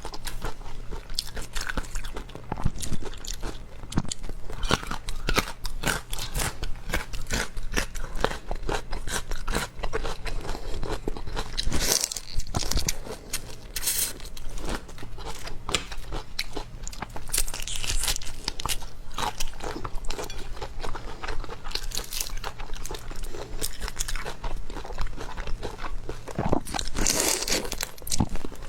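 Close-miked chewing and crunching of seafood, a dense run of small crackling bites with a few louder crunches spread through.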